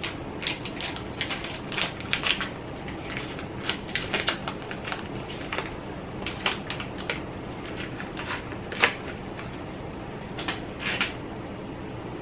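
Paper wrapper of a stick of butter rustling and crinkling as it is peeled off by hand, in irregular short bursts, with one sharper crackle about nine seconds in, over a steady low background hum.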